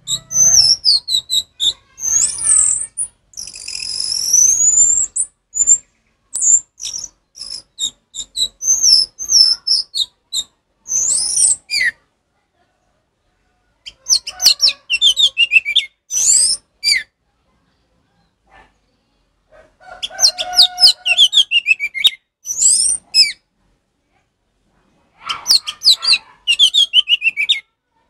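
Orange-headed thrush (anis merah) singing its loud, open "ngeplong" song: quick sliding high whistles and twittering runs. It sings almost without a break for about twelve seconds, then in three shorter bursts of a few seconds with brief pauses between them.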